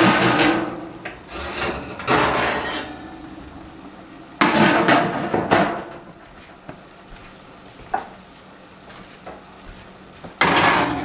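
Clatter and scraping of a baking dish and metal oven rack being handled at an open oven, in four loud bursts, with a single sharp click about eight seconds in.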